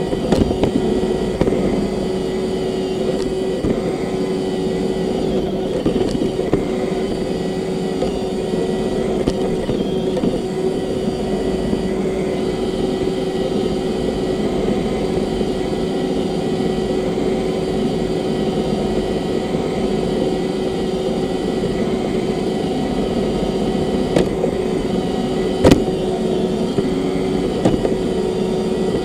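Roomba robot vacuum running, picked up by a camera riding on it: a steady motor and brush drone with a constant hum. A few sharp knocks break through it, the loudest about four seconds before the end.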